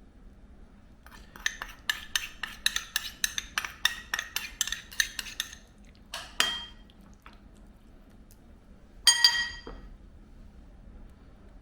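A utensil clinking rapidly against a bowl, about four ringing strikes a second for some four seconds, as when stirring or mixing. It is followed by one clink and, about nine seconds in, a louder single ringing clink.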